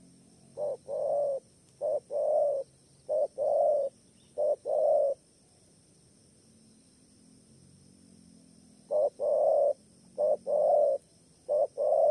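Spotted dove cooing: repeated two-part coos, a short note followed by a longer one. There are four in a row, then a pause of a few seconds, then three more near the end.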